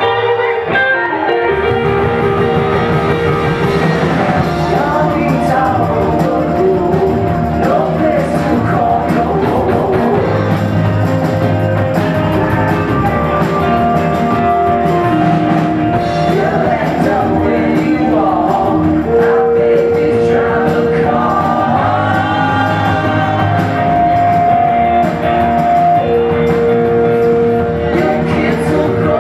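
Live rock band playing a song, with electric guitars, bass and drum kit under sung vocals with long held notes.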